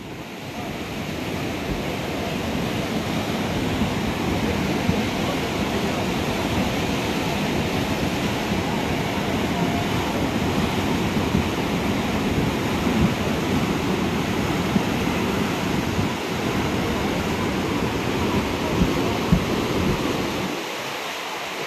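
A river in flash flood, its muddy water rushing and churning past the bank: a steady, loud roar of fast-moving floodwater that builds over the first couple of seconds.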